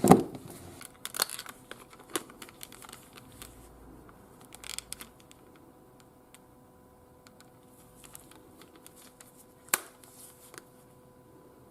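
Hands handling plastic parts: a loud knock at the start, then scattered sharp clicks and crinkly rustling, with a faint steady hum underneath.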